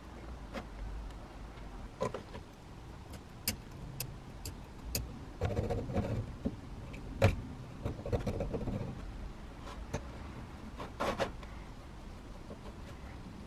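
A screwdriver and a thin steel blade scraping and clicking against the rusty head of an old spiral jack as they pry at the ring around its screw opening. Scattered ticks, a stretch of scraping in the middle with one sharp click a little past halfway, the loudest, and a few more clicks near the end.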